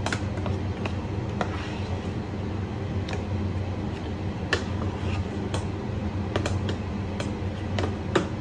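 Spoon stirring thick egusi paste (ground melon seed mixed with water and red oil) in a stainless steel pot, with irregular sharp clinks as it knocks against the side, about a dozen of them. A steady low hum runs underneath.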